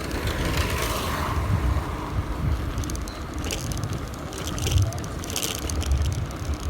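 Bicycle riding over a bumpy, potholed street, with wind buffeting the microphone and the bike rattling on the bumps, most in the second half.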